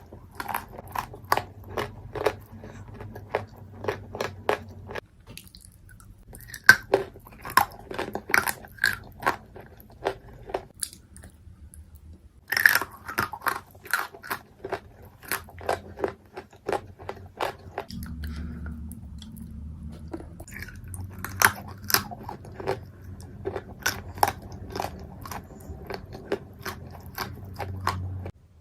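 Chunks of Turkestan clay being bitten and chewed close to the microphone: a run of sharp, dry crunches several times a second, broken by abrupt cuts between takes. The sound stops suddenly near the end.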